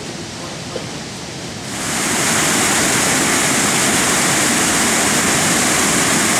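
Low Force waterfall on the River Tees, flowing strongly, with a loud, steady rush of white water. It comes in suddenly about two seconds in, after a quieter stretch.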